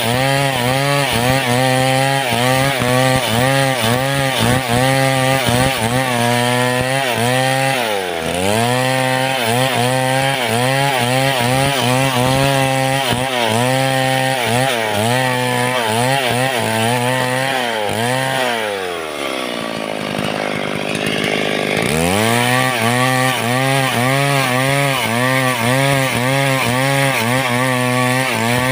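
Two-stroke chainsaw at high revs ripping lengthwise through a log, its engine note wavering up and down with the load of the cut. About two-thirds of the way through it drops to idle for a few seconds, then revs back up and keeps cutting.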